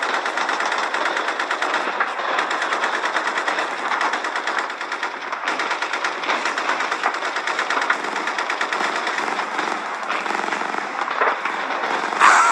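Machine-gun fire sound effects: sustained, rapid automatic shots with no letup. Near the very end, a louder sound with a falling pitch cuts in.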